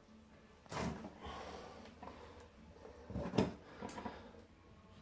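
Quiet room with a few brief handling noises, one about a second in and a couple more about three and a half seconds in.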